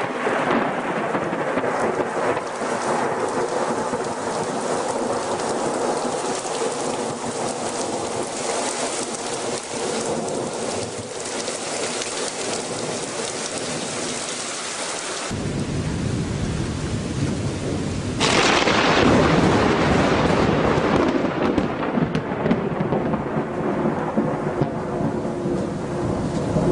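Heavy rain pouring down in a thunderstorm. About halfway through, a deep thunder rumble sets in, and a few seconds later the thunder swells suddenly louder and keeps rolling.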